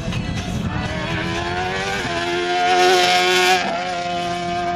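Prototype race car engine accelerating through a slalom, its pitch climbing over the first two seconds and then holding high. It is loudest about three seconds in, with a rush of noise that cuts off suddenly.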